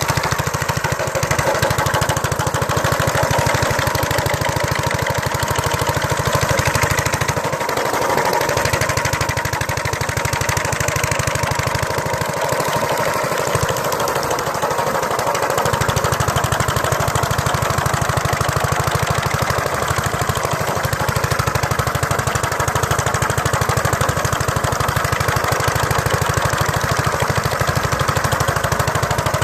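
Mayfield motor scythe's small engine running steadily with a fast, even pulse; its low end thins out briefly twice, around the middle.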